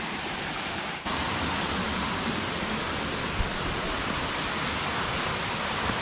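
Waterfall rushing with a steady, even noise, with a brief dip about a second in and a faint low thump a little past the middle.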